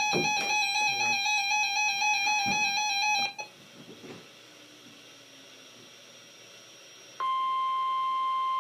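A buzzy electronic tone stack, heard as music, ends about three seconds in. After a quiet gap, the NOAA Weather Radio warning alarm, a single steady 1050 Hz tone, switches on abruptly about seven seconds in and holds.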